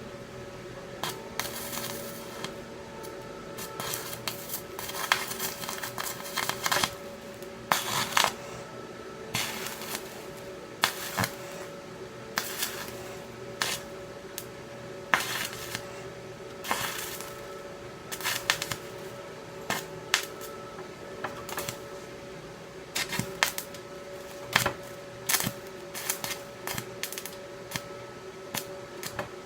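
Stick-welding arc with a cast steel rod at low amperage (44 A) on thin metal, crackling and popping in short, irregular bursts as a gap is filled. A steady hum runs underneath.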